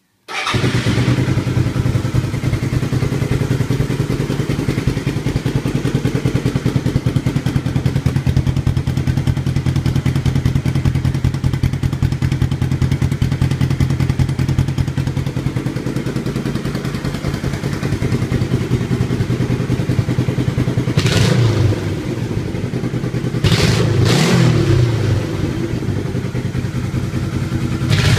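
1982 Yamaha XS400 Maxim's air-cooled parallel-twin engine starts up and settles into a steady idle. About three-quarters of the way through, the throttle is blipped twice in short revs that rise and fall back to idle.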